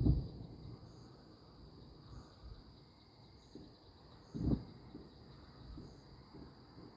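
Crickets chirring steadily, with two dull booms of distant fireworks: a loud one at the very start and another about four and a half seconds in.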